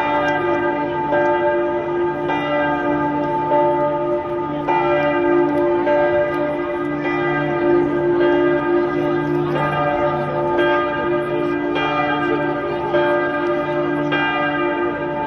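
Bells ringing, a new strike about every second, the tones overlapping into a sustained ring.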